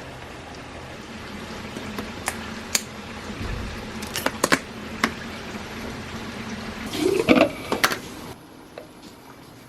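Water running steadily, with several sharp clinks and knocks over it and a brief rising tone like a container filling; the flow stops suddenly about eight seconds in.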